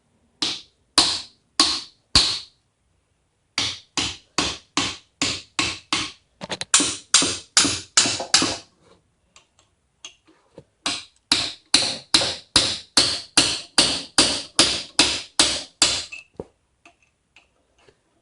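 Hammer blows on a Master Lock padlock, metal on metal, each strike ringing briefly. There are four single blows, then two long runs of about three blows a second with a short pause between them. This hammering breaks the padlock's shackle.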